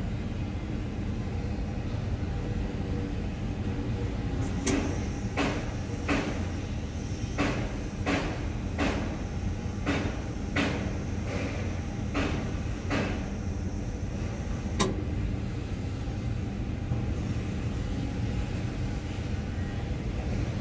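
Steady low hum of a Potain MD569 tower crane, heard from its operator's cab. Partway through comes a run of about a dozen evenly spaced clicks, roughly one every second, then one more sharp click a little later.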